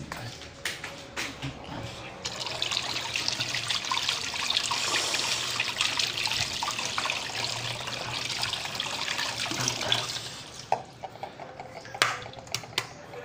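Kitchen tap running into a sink, splashing over hands and eggs being rinsed, for about eight seconds, then shut off. Near the end come a few light knocks as eggs are set down on a tiled counter.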